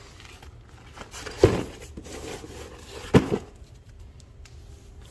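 Two short, sharp handling noises about a second and a half apart, each trailing off briefly, as the impact driver's fabric carrying case is handled.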